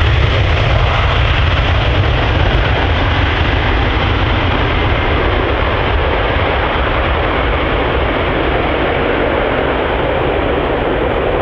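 Jet aircraft engine noise: a loud, steady rush with a deep rumble that slowly eases while the highest hiss dulls.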